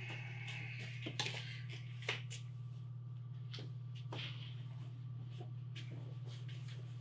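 Steady low hum under scattered light clicks and knocks: handling noise as a pistol is put into a shoulder holster, then a man moving about and walking off.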